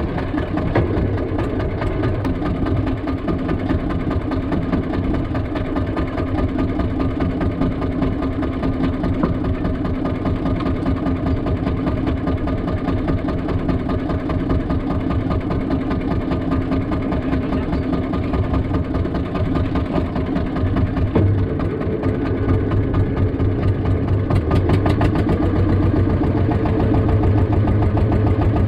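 Small fishing boat's engine running steadily at low revs, getting a little louder and heavier about three-quarters of the way through.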